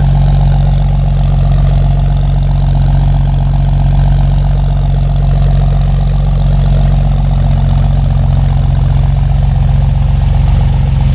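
1946 Chevy truck's engine idling steadily through a dual exhaust manifold, glass-pack mufflers and dual 2-inch pipes, giving a deep, even exhaust note.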